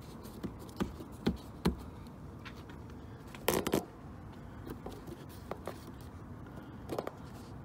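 Plastic air-cowl grill of a 2007 Ford Fiesta being pressed down by hand along the base of the windshield, giving scattered light clicks and taps, with a quick cluster of louder clicks about three and a half seconds in.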